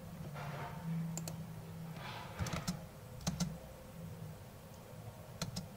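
Computer mouse buttons clicking several times, short sharp clicks, some in quick pairs, over a faint low hum.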